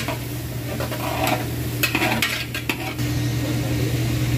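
A slotted metal spoon stirs and scrapes tomato paste and fried onions around a metal pot while the oil sizzles, with a run of scrapes about two seconds in. A steady low hum runs underneath.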